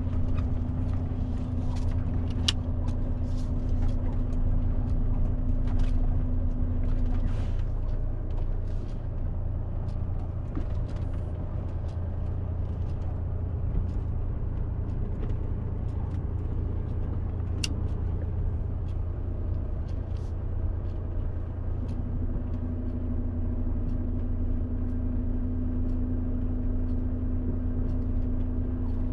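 Truck engine running under way with road noise: a steady low drone, scattered knocks and rattles from the rough road, and a steady hum that fades out about seven seconds in and comes back near the end.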